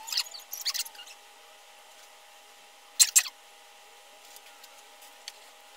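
Paper and plastic TV packaging being handled and tossed aside, rustling and crinkling in short bursts through the first second and again sharply about three seconds in.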